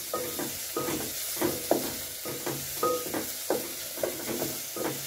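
Onions sizzling in hot oil in a metal sufuria while a wooden spoon stirs them, scraping and knocking against the pot about twice a second over the steady sizzle.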